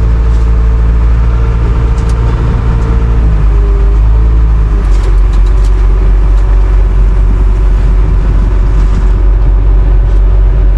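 Diesel engine of heavy farm machinery running loud and close. Its note shifts slightly lower about three seconds in, with a few faint clicks.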